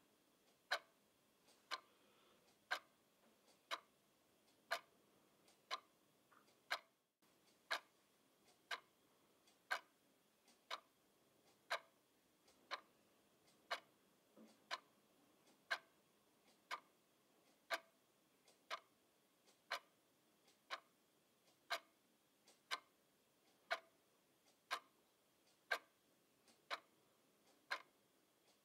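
Black twin-bell quartz alarm clock ticking, one sharp tick each second, with a very short break in the sound about seven seconds in.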